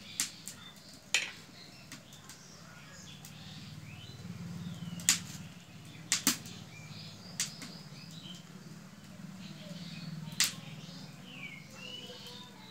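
Sharp, scattered clicks and taps of a steel spoon and a metal dumpling mould against a brass bowl as dough is filled and folded, the loudest about five and ten seconds in. Birds chirp now and then over a low steady hum.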